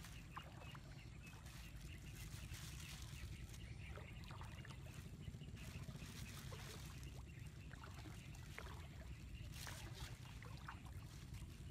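Light splashing and dripping of water in a shallow pond as a hand and a plastic bag move through it, in scattered small clicks and splashes over a steady low rumble.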